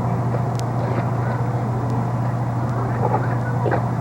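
Steady low drone of a car driving, heard from inside the cabin: an even hum of engine and road noise.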